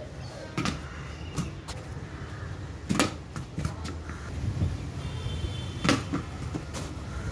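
Cricket bat striking a ball in batting practice: a few sharp knocks, the loudest about three seconds in and another just before six seconds, with lighter knocks of the ball between.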